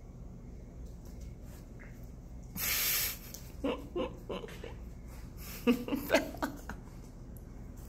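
Breathy huffs close to the microphone: one sharp breathy rush about two and a half seconds in, then two clusters of short pitched puffs, the loudest a little before and after six seconds.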